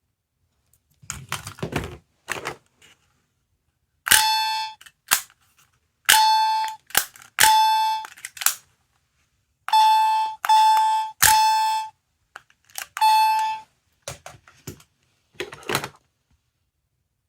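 A sound-making capsule toy playing short electronic beeps through its tiny speaker: about six or seven bursts, each under a second and mostly at the same pitch, in small groups. Plastic handling clicks and knocks come before them and again near the end.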